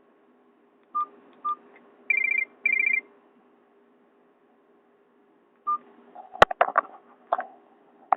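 Nokia 216 phone beeping through its speaker: two short beeps, then two quick trilling tone bursts, and another beep a few seconds later. Near the end come several sharp clicks and knocks from handling the phone.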